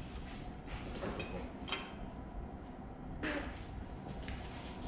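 Scattered light metallic clicks and scrapes of hand tools working a stud out of an engine, with one sharper click that rings briefly a little under two seconds in.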